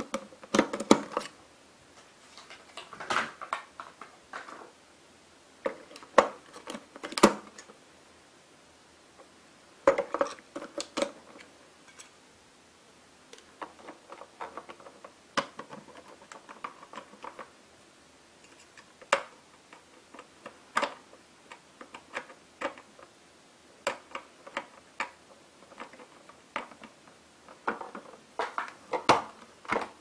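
Irregular plastic clicks and knocks as AA batteries are pushed into the spring contacts of a Pororo toy vacuum cleaner's battery compartment and the cover is fitted back, with handling of the hard plastic body.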